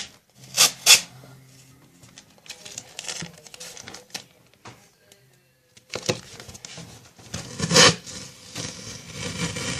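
Electrical tape being pulled off the roll and worked onto a wallet: two sharp tearing rips about half a second in, quiet rustling handling, a short pause, then more ripping and rustling, with the loudest rip about two seconds before the end.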